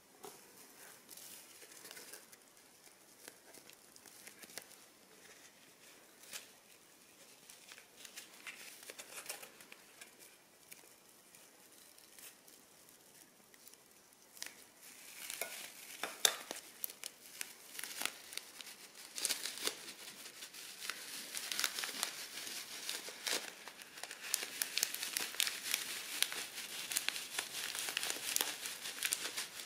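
Crunchy slime being worked by hand, giving a dense, irregular crackling and crinkling. It starts faint, grows louder about halfway through, and is louder still near the end.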